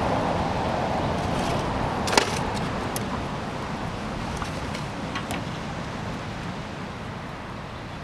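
Metal tongs clicking a few times against the grill grate and plate as the chicken is lifted off, the sharpest click about two seconds in. Under it, a steady rushing outdoor background that slowly fades.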